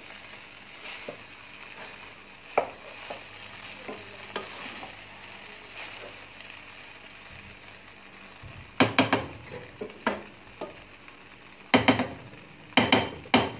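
Rice and vegetables sizzling softly in a pot over low heat as the last moisture cooks off, while a spoon stirs and scrapes through them. In the second half the spoon knocks sharply against the pot several times.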